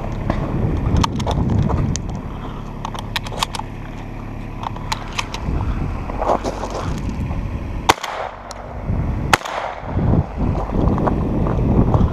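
Two shotgun blasts from a Remington Versamax semi-automatic shotgun about a second and a half apart past the middle, each sharp and very loud, over a steady low engine hum and brushing, clicking movement noise.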